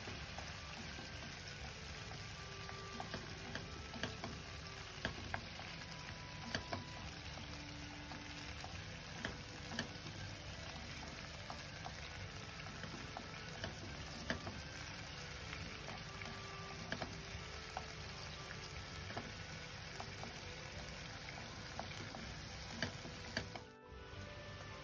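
Beef strips sizzling in a soy-sauce liquid in a nonstick frying pan: a steady sizzle with scattered small pops and clicks. The sizzle briefly drops out near the end.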